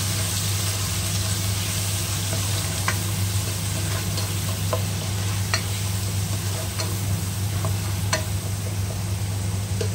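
Sliced onions and onion paste frying in hot oil in a pot, sizzling steadily while a spatula stirs and scrapes through them, with scattered sharp clicks. A steady low hum runs underneath.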